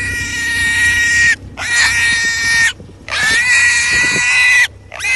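Wild boar squealing loudly while held after being caught by hand: four long, high-pitched squeals in a row, with brief breaks between them.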